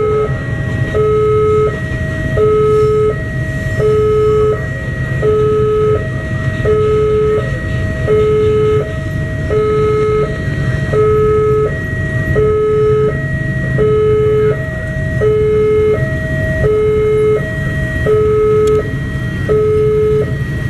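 Railway level-crossing warning alarm sounding a steady two-tone signal, alternating low and high about once a second, over the low rumble of a freight train of tank wagons rolling along the track.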